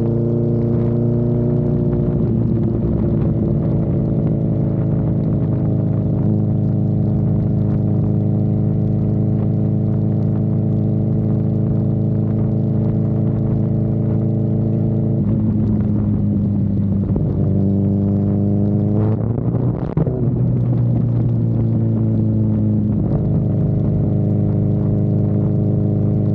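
Honda CB1000R inline-four engine running under way, holding a steady note for long stretches. About two-thirds of the way in the pitch shifts, then rises sharply and drops with a brief dip, like a rev and gear change, before it settles into a steady note again.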